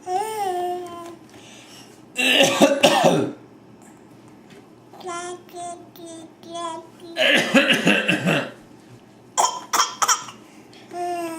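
A young child coughing in imitation: three harsh coughing bouts, with short voiced sounds between them.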